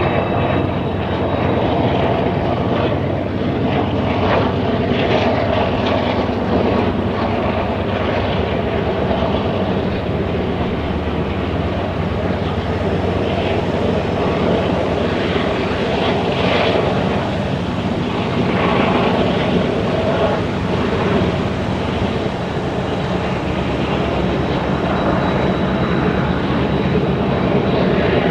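Diesel locomotives of a Canadian Pacific freight train running in a steady drone as they pull the train up the grade out of a spiral tunnel.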